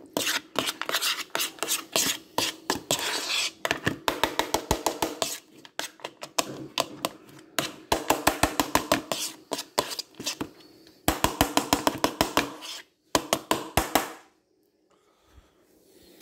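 A metal spoon clinking and scraping in a bowl of dry dog food, in quick runs of taps several a second, stopping about fourteen seconds in.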